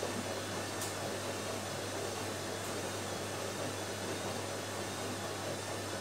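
Automatic washing machine draining: the drain pump runs with a steady low hum under an even rush of water.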